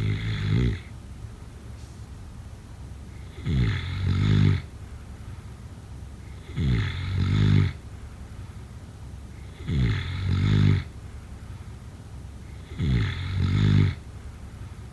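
A sleeper snoring in a steady rhythm: five rasping snores, each about a second long and swelling as it goes, about every three seconds.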